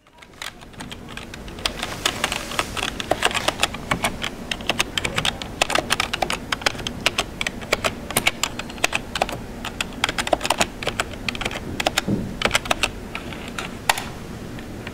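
Typing on a computer keyboard: a quick, irregular run of key clicks that fades in at the start and stops about a second before the end.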